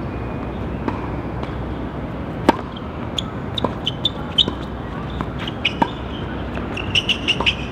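Tennis being played: a few sharp knocks of ball on racket or court, the loudest about two and a half seconds in, with clusters of short high squeaks, over a steady background rumble.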